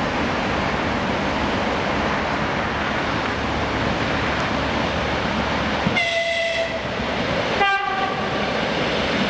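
ЭП2ДМ electric multiple unit rolling into a platform with steady rumbling wheel and running noise, and two short horn blasts, the first about six seconds in and a briefer one just under two seconds later.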